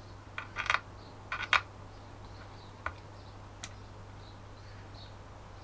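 Light clicks and taps of small hard objects being handled, in two quick clusters in the first second and a half, then single clicks about three and three and a half seconds in, over a low steady hum.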